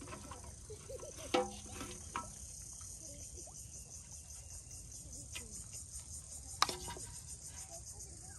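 Insects chirring steadily at a high pitch with a fast pulsing rhythm. Two sharp knocks break through, one about a second and a half in and one about two-thirds of the way through.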